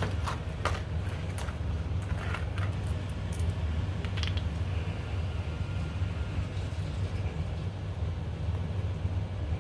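Small metal parts of a Jeep hood latch being handled: a few light clicks and taps in the first few seconds, over a steady low hum.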